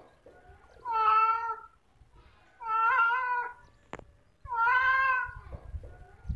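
Domestic cat meowing three times, each meow long and drawn out, spaced about two seconds apart.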